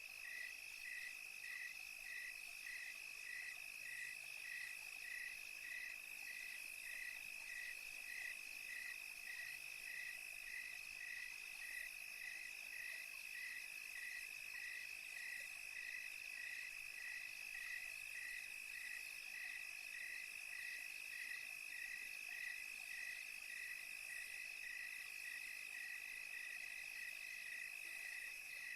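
Night chorus of crickets: a steady high trill, with a slightly lower chirp repeating evenly about one and a half times a second.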